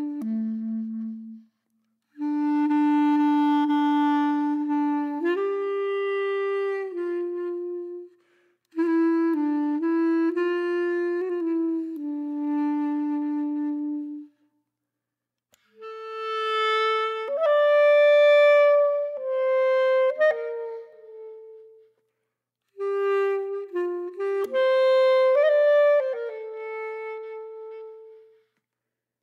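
Background music: a slow solo melody of long held notes, played in phrases of a few seconds each, with short silences between them.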